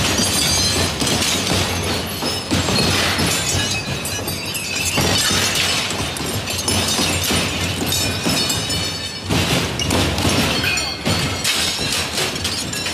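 A crushing machine breaking up brittle material, a continuous run of sharp cracking and shattering.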